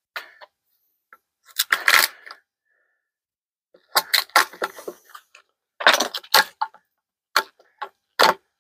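Screwdriver prying and chipping the last bits of wood out of a saw-kerfed notch in a wooden post. Several short bursts of sharp clicks, scrapes and small cracks, with gaps between them.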